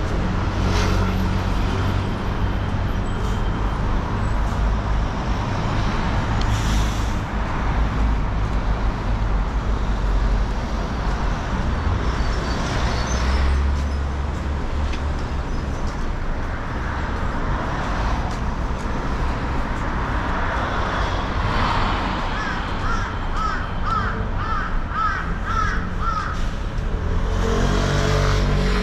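Steady rumble of city street traffic, cars and buses passing close by. In the second half a bird calls several times in a quick series, about two calls a second.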